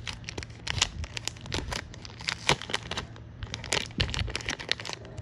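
Clear plastic bag around a stack of trading cards in toploaders crinkling and crackling as fingers pull it open, in a quick irregular run of sharp crackles, loudest about halfway through and again near the end.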